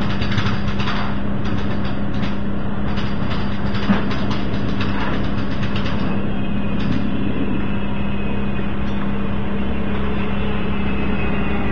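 Steady open-air platform noise with a constant low hum, a few light clicks and a sharp knock about four seconds in. Near the end a WMATA Metrorail train approaching the platform adds a building low rumble and a faint high whine.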